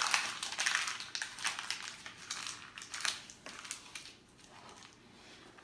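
Dense paper rustling and crinkling, a rapid run of crackles that fades away over about four seconds.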